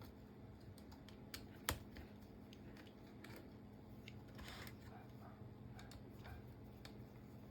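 Faint clicks and light taps from handling small laptop parts and tools, with one sharper click about a second and a half in and some soft rustling midway.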